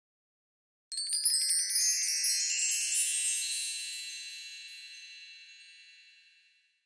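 Bright run of chimes: many high metallic notes struck in quick succession about a second in, then ringing on and fading away slowly over about five seconds.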